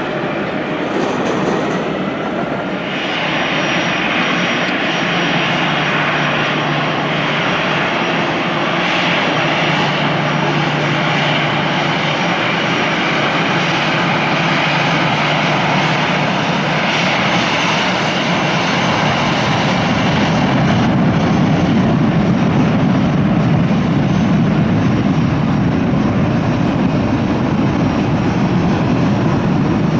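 Jet engines of an Air Seoul airliner at takeoff power, heard as continuous loud jet noise. The noise thickens about three seconds in and grows deeper and slightly louder in the later part as the aircraft rolls and lifts off.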